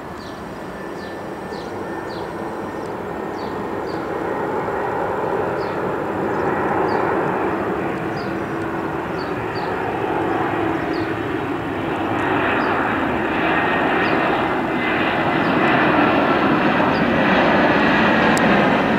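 Airbus A320 airliner on final approach with landing gear down, its jet engines' rushing noise growing steadily louder as it comes closer, with a steady high whine on top.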